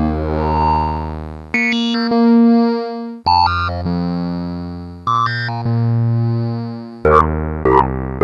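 Digital Bezier-synthesis tones: a sequence of sustained synthesizer notes, each with its timbre shifting as it sounds, about two seconds apart, then shorter, sharper notes coming faster near the end.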